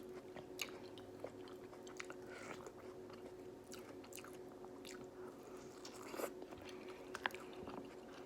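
A person chewing food from a seafood boil, with scattered soft mouth clicks and small crunches over a faint steady hum.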